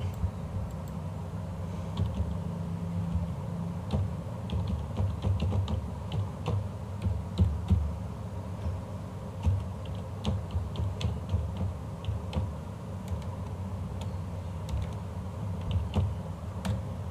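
Computer keyboard keys being tapped in irregular runs as an email address is typed, starting a few seconds in, over a steady low hum.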